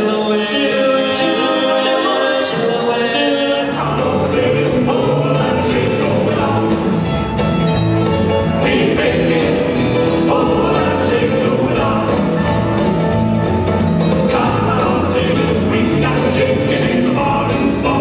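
Four singers harmonising in rock 'n' roll-era close harmony, at first unaccompanied; about four seconds in, the live band comes in under them with bass and drums, and the singing carries on over the band.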